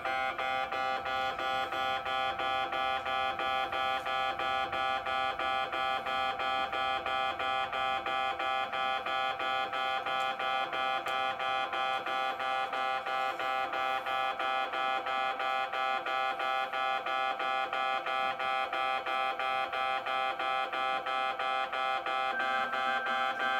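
Japanese railway level-crossing alarm ringing its electronic warning bell, a set of fixed tones pulsing rapidly and evenly, which signals that a train is approaching. A second steady tone joins about a second before the end.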